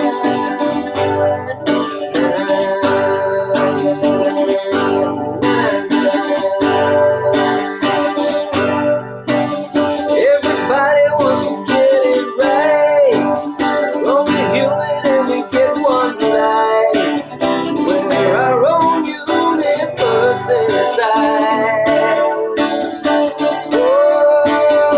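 Acoustic guitar strummed in a steady rhythm, with a man's voice singing over it at times.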